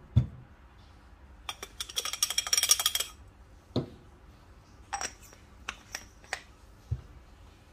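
Metal and glass clinks from handling coffee-making gear. About a second and a half in there is a quick rattle of ringing clicks lasting about a second and a half, then several separate sharp taps and clicks.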